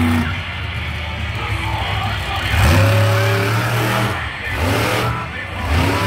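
Monster truck engine revving hard in repeated surges, rising in pitch and holding each time, as the truck charges a dirt jump.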